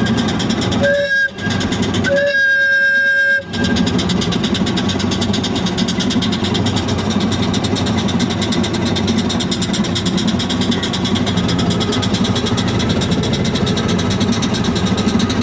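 A two-note whistle blows twice, a short blast about a second in and a longer one just after. Then the boat's #10 Hasbrouck 2 hp steam engine runs on steadily with a rapid, even beat.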